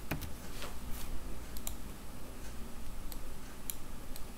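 Computer keyboard keys clicking: a handful of separate keystrokes spread through, not continuous typing.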